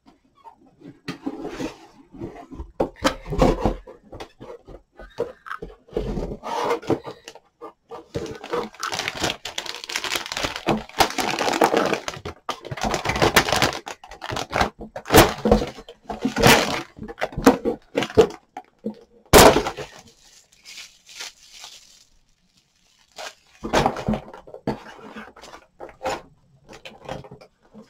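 Cardboard box and plastic packaging being handled while unpacking a model kit: bagged plastic parts sprues crinkling, scraping and knocking against the cardboard, with irregular clicks and taps. One sharp knock about 19 seconds in is the loudest sound, followed by a short lull before the handling resumes.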